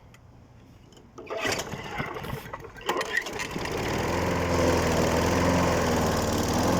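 John Deere 14SZ walk-behind mower engine being pull-started: about a second in come the rattling pulls, and some three to four seconds in it catches and then runs steadily. It runs on a dose of carburetor cleaner sprayed into the carb, because its stuck choke lever won't choke it.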